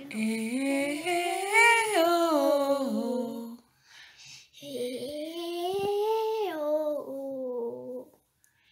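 Young girl's voice doing a wordless vocal warm-up exercise (vocalize): two long sung tones, each sliding up in pitch and then back down, with a short breath between them.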